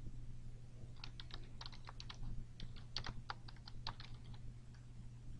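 Typing on a computer keyboard: a quick, irregular run of keystrokes starting about a second in and easing off near the end, over a steady low hum.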